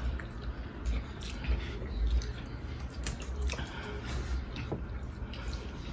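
Someone eating seafood close to the microphone: wet chewing and squishing, with scattered small clicks at irregular moments.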